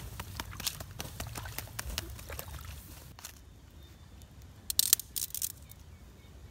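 Hot ashes and embers crackling around a clay pot, with many sharp ticks that thin out after about three seconds. A few louder clicks come near the middle, over a low rumble.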